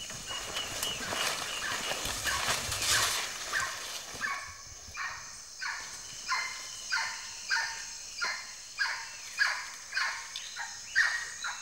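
A monkey in the rainforest canopy calling back: about a dozen short calls in a steady series, each about half a second to two-thirds of a second apart, getting slightly quicker near the end. Noisy rustling comes before them, in the first few seconds.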